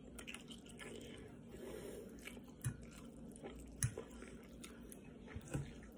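Faint chewing close to the microphone, with three soft mouth clicks spread through it.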